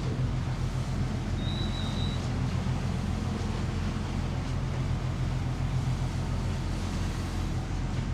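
Motor yacht's inboard diesel engines running steadily under way, a constant low drone. A short high beep sounds about one and a half seconds in.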